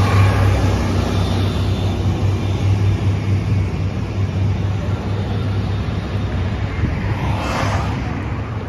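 City street traffic at an intersection: a steady low rumble from a city bus moving off across the crosswalk and cars driving through. One passing car swishes by about seven and a half seconds in.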